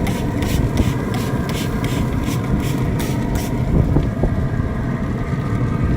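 A trigger spray bottle spritzing liquid onto smoking ribs, in short quick squirts about four a second that stop a little past halfway. A steady low rumble runs underneath.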